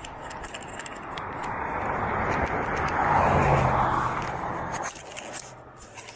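A vehicle passing close by: a road-noise whoosh with an engine hum that builds to a peak past the middle, then drops away sharply near the end.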